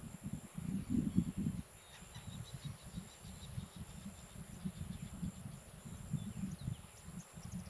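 Natural ambience: a steady high insect drone with a few faint bird chirps, over an uneven low rumble that is louder for the first second and a half.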